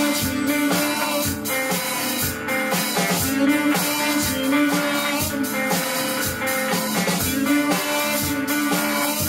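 A small rock band playing an instrumental passage: electric guitar over a drum kit keeping a steady beat, with no singing.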